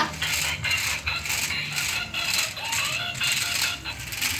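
Remote-control toy off-road stunt car with mecanum wheels driving over paving stones, its plastic wheels and gears rattling, with music playing over it.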